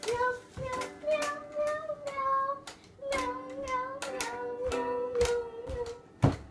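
A young child singing in a high voice, with long held notes about four seconds in. A sharp thump sounds near the end.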